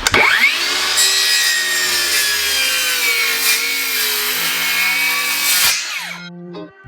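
Electric power saw cutting through wooden framing lumber. It runs steadily under load for nearly six seconds, then spins down with a falling whine near the end.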